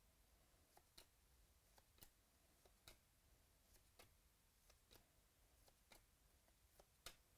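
Near silence with a faint click about once a second as football trading cards are flicked one at a time through a hand-held stack.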